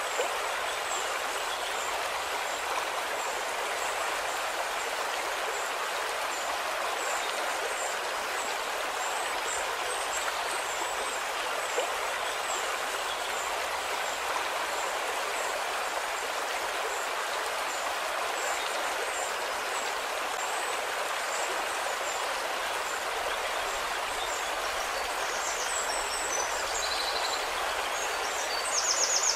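Steady rushing of running water, like a flowing stream, with faint high chirps repeating over it and a few brighter, louder chirps near the end.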